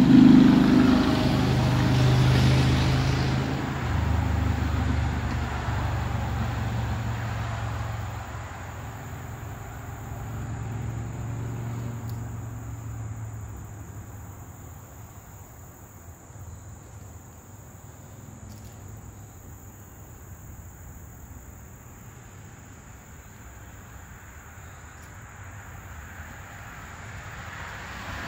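A motor vehicle's engine, loudest at the start and fading away over the first several seconds as it moves off. A faint steady background hum of traffic remains after it.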